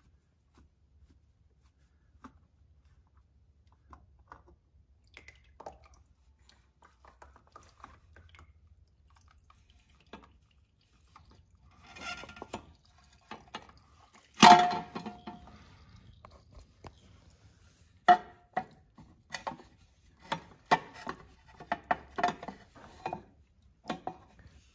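Oil filter of a Yamaha R1 being wiggled out past the exhaust header: scattered knocks and scrapes of the filter against metal, one loud knock about halfway through, then a quick run of clacks near the end.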